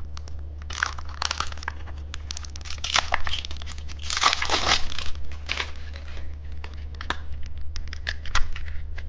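Plastic candy wrapper crinkling and tearing as it is handled and opened, in irregular rustles and clicks with the longest rustle about four to five seconds in. A steady low hum runs underneath.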